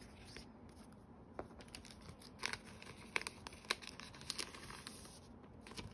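Light rustling and a scattered series of soft clicks from printed photos and paper or plastic packaging being handled and slid back into their holder.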